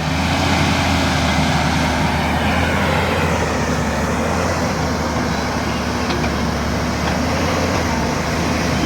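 JCB 205 excavator's diesel engine running at a steady speed: a continuous low drone.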